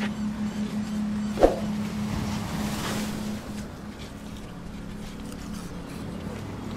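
A boat engine idling with a steady low hum, and one sharp knock about a second and a half in.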